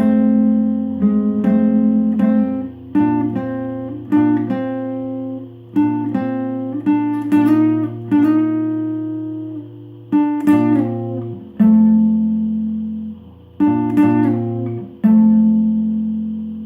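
Guitar playing an instrumental: chords and single notes picked and left to ring, with a quicker run of notes about halfway through and a last chord fading out near the end.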